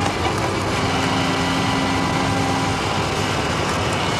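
Motorcycle engine running at a steady speed as the bike rides along.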